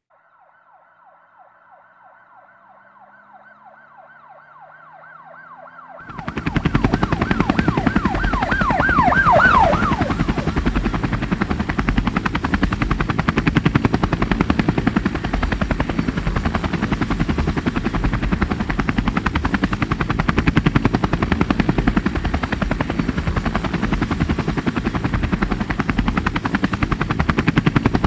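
A police siren yelping, faint at first; about six seconds in, a helicopter's rotor chop comes in suddenly and loudly and runs on steadily, while the siren sweeps down and stops about ten seconds in.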